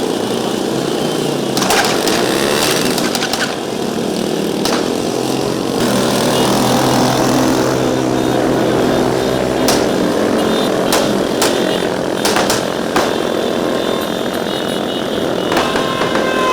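An engine running steadily, its pitched hum clearest in the middle, with several sharp clicks or knocks scattered through.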